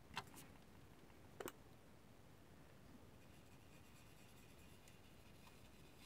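Near silence: room tone with two faint light clicks, about a second and a quarter apart, from small handwork at the bench.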